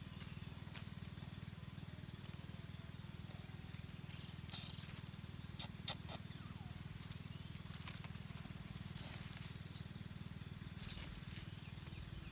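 Dry leaves crackling and rustling in a few short bursts as a dead squirrel is handled on a bed of them, over a steady low hum.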